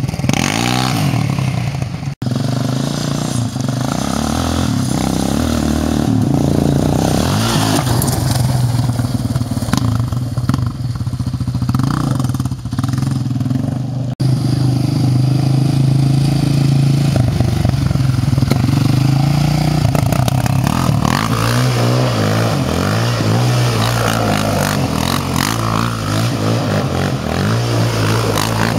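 A 2009 Yamaha Raptor 700 ATV's single-cylinder four-stroke engine runs and revs up and down. It comes in separate clips with hard cuts about two seconds in and about fourteen seconds in. In the last part it revs continuously while the quad spins in loose dirt.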